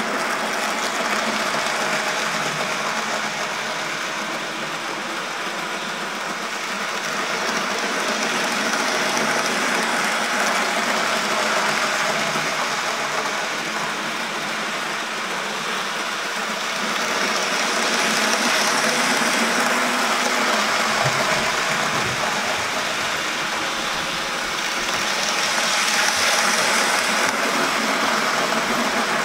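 N gauge model trains running round the track: the small electric motors whir and the wheels rattle on the rails, a steady mechanical running noise. It grows louder three times as a train comes close and eases off as it moves away.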